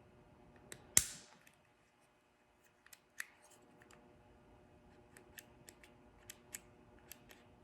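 Small plastic parts of a hazard-light switch button clicking as they are handled and pressed together: one sharp snap about a second in, then a string of light ticks and clicks.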